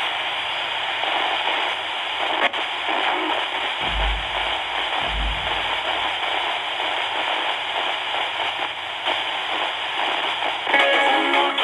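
XHDATA D-220 radio's speaker hissing with FM static while being tuned to a weak station it cannot yet hold, with a click and two low thumps early on. Near the end a station's music breaks through the hiss.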